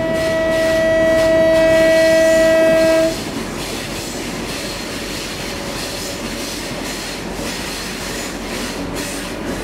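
Locomotive air horn sounding one steady note for about three seconds, cut off sharply. Then the train's running noise and the clatter of wheels on rails as it travels through a tunnel.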